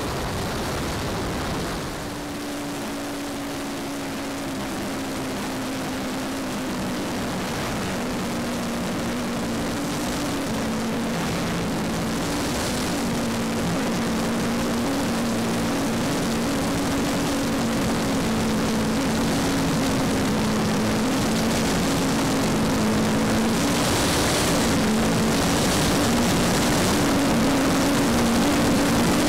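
Giant-scale model VC-10's four Wren Super Sport jet turbines and rushing air, heard from a camera mounted on the airframe in flight. A steady noise with a low hum that shifts slightly in pitch, growing gradually louder.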